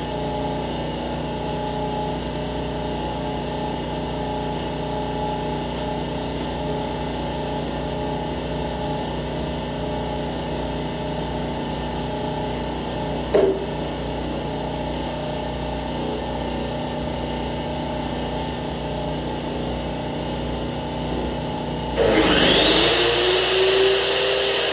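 A steady mechanical hum, then about 22 seconds in a cold-cut chop saw starts with a rising whine as its motor spins up and begins cutting steel flat bar, much louder than the hum.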